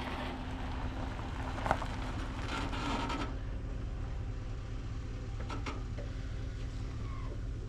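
A motor vehicle running, a steady low rumble with a constant hum, with a few brief knocks and rattles.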